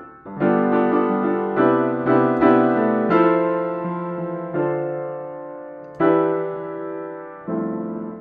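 Background piano music: chords struck one after another, each left to fade before the next.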